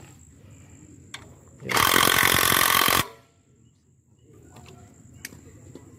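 Impact wrench run in a single burst of about a second and a half, undoing a bolt while the upper right engine mount is being removed.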